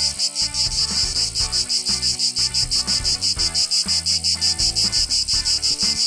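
Brood X periodical cicadas calling: a high, rapidly pulsing buzz at about eight pulses a second.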